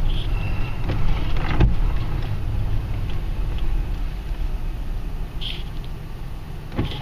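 A car rolling slowly, heard from inside the cabin: a steady low engine and tyre rumble that grows quieter toward the end as the car slows, with a few faint knocks.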